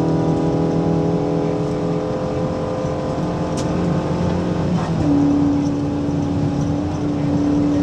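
Mitsubishi Colt Lancer A73 rally car's 1882 cc Saturn 4G32 inline-four engine running under hard acceleration, heard from inside the cabin. The engine note climbs slightly, breaks about five seconds in at a gear change, then settles into a new steady pitch.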